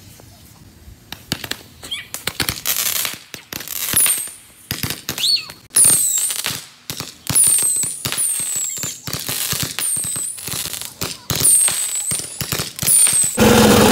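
Consumer fireworks going off: rapid crackling pops and bangs, with a high whistle falling in pitch repeated about once a second from about four seconds in. Just before the end, a dirt bike engine starts running steadily.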